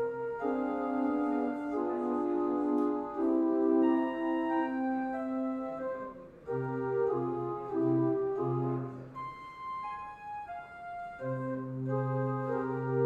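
Church organ playing slow, held chords over a low pedal bass. The bass drops out briefly about six seconds in and again for a couple of seconds later on.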